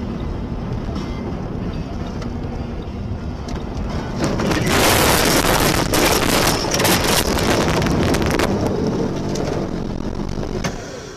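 Car's road and engine noise inside the cabin, then from about four seconds in a loud rushing of snow with many knocks and scrapes as the car ploughs off the snowy road into deep snow and brush, easing off over the last few seconds.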